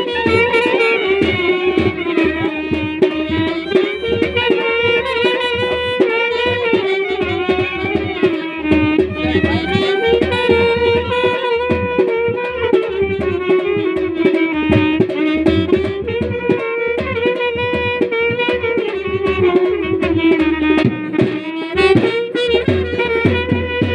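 Live Indian folk music: a reed wind instrument plays a continuous, wavering melody over fast hand-drum strokes.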